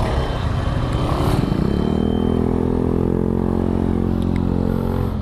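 Yamaha RX-King's single-cylinder two-stroke engine running while riding, its note climbing a little about two seconds in and then holding steady.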